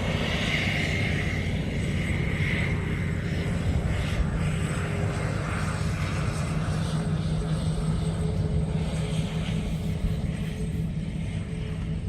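John Deere combine harvesters running steadily while cutting soybeans, a continuous low engine drone with a faint high whine above it.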